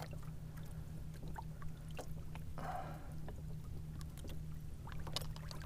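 Small splashes and drips of water around a kayak over a steady low hum, with scattered light ticks.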